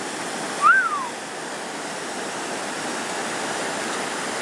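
Steady rush of flowing creek water. About three-quarters of a second in there is one short, loud chirp that rises and then falls in pitch.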